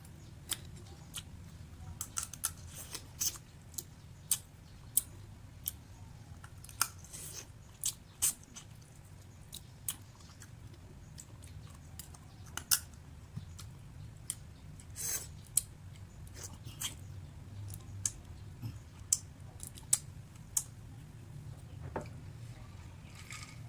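Close-up eating of sun-dried leas hal: irregular crisp clicks and crunches, about one or two a second, over a low steady hum.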